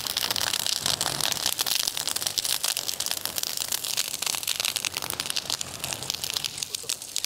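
Open fire crackling: a dense, continuous run of sharp snaps and pops with a hiss beneath, stopping abruptly at the end.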